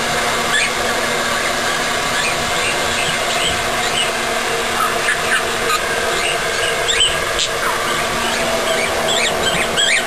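Pet budgerigar warbling along to a hair dryer, set singing by the dryer's noise: a steady rush of blown air under a stream of short chirps and squeaky rising and falling notes, which grow busier in the second half.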